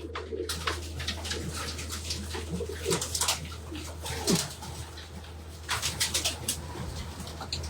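Racing pigeons cooing in the loft, with scattered clicks and scuffles from birds moving about and a steady low hum underneath.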